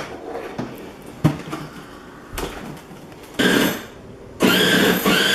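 Electric drive motors and gearbox of a 12-volt ride-on toy car whining as it drives: a short burst about three and a half seconds in, then running steadily from about a second later. A few faint knocks come before.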